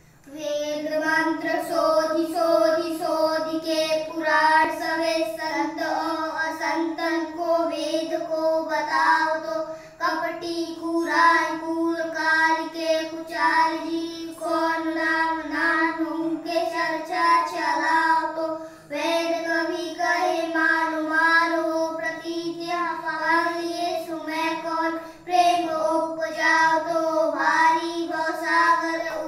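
Two boys singing a Hindu aarti, a devotional hymn to Ram, in a steady chanted melody, with a couple of brief breaks for breath.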